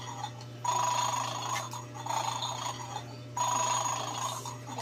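Electronic toy's small speaker repeating a steady buzzy tone. It comes on for a second or so about every two and a half to three seconds: about half a second in, and again about three and a half seconds in.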